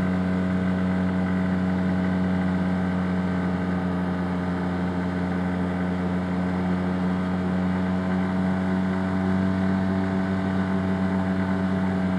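Arctic Cat Wildcat Trail side-by-side's engine running at a steady cruising speed, a constant drone that holds one pitch throughout.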